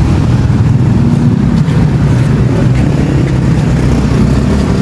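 Steady low rumble of road traffic, motorcycles and cars running along a busy street.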